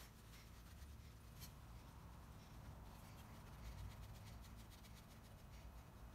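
Near silence, with faint rustling of a cloth rag and light handling of a metal compass plane.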